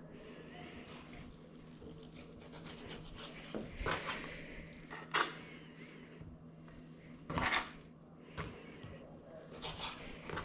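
Kitchen food-prep handling: irregular rubbing and scraping with a few sharp knocks of dishes or utensils on a wooden surface, over a steady low hum.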